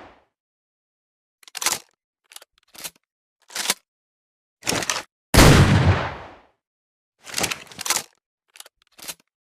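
Double-barrel shotgun sound effect: a short series of sharp mechanical clicks from the gun's action, then one loud shot about five seconds in that rings out for about a second, followed by more clicks.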